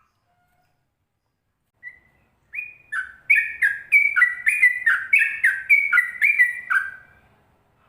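A songbird singing a fast run of clear whistled notes, each dropping in pitch, about three a second; it starts about two seconds in and stops shortly before the end.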